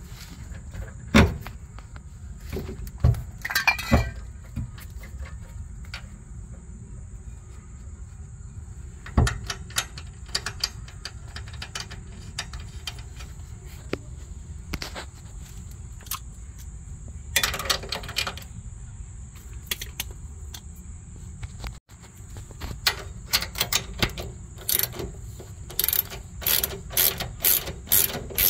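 Scattered metal clicks and knocks of parts and tools being handled, then, about two-thirds of the way through, a socket ratchet clicking in a steady series of short strokes, tightening the nut on the rear camber arm's ball-joint stud.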